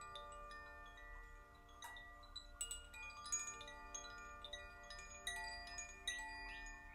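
A hand-held Sufi wind chime swayed by its cord, tinkling with quick, irregular strikes whose bright tones ring on and overlap.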